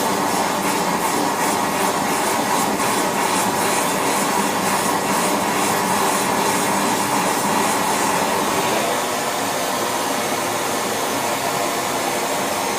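Gas-and-air torch burning steadily while melting silver, an even rushing flame noise with no breaks.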